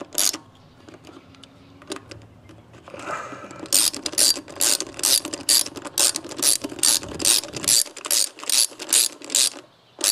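Hand ratchet clicking, about three clicks a second, as a socket on an extension tightens a bolt on the fuel injector's hold-down bracket. The clicking pauses for a few seconds shortly after the start, then resumes steadily.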